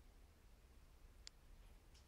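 Near silence: room tone, with one faint sharp click a little past the middle.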